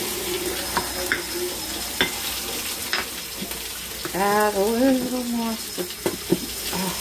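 Steak sizzling in a frying pan over running water, with a fork clicking and scraping against a glass bowl as ham salad is stirred. About four seconds in, a short pitched sound rises and then holds for about a second and a half.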